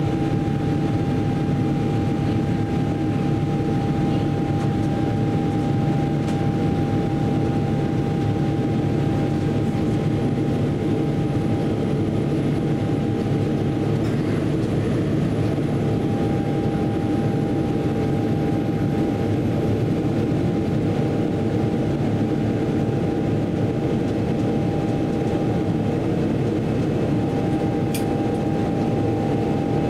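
Steady cabin noise inside a Boeing 777-300ER in flight: the drone of its GE90 engines and the rush of air past the fuselage, with a thin steady tone running through it.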